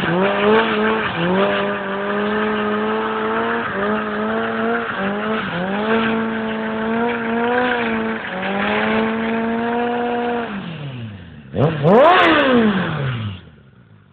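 Suzuki Bandit 600 inline-four engine held at high revs for a burnout, the rear tyre spinning in place; the revs dip and pick up again several times. About ten seconds in the revs fall away, there is one quick blip of the throttle, and then the engine drops off to a faint low idle near the end.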